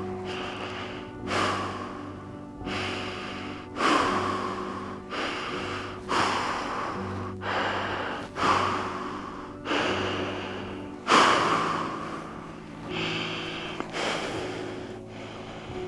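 A man's heavy, gasping breaths, about one every second and a quarter, each starting sharply and fading, over a steady low music drone.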